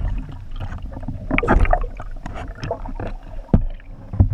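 Muffled underwater sound heard through a camera housing: water moving against the housing, with irregular clicks and knocks and a sharper knock about three and a half seconds in and again near the end.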